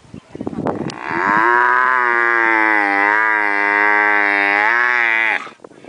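Camel calling: about a second of rough, gurgling grunts, then one long bellow held for about four seconds with a slight waver in pitch, which ends abruptly.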